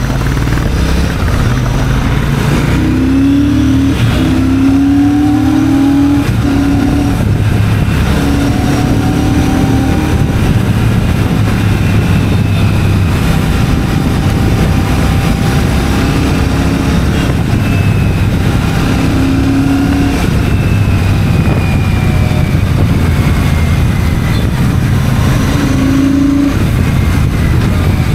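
Royal Enfield Shotgun 650's parallel-twin engine running while the bike is ridden, mixed with steady wind and road noise. The loud engine note holds fairly steady, rising and falling a little in pitch.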